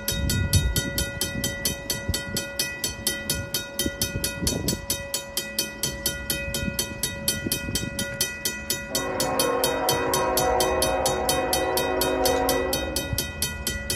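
Mechanical level-crossing bell (Griswold/RACO) ringing steadily, about three strikes a second, as the crossing is activated for an approaching train. About nine seconds in, the lead locomotive's Nathan K5HL five-chime horn sounds one long blast of about four seconds.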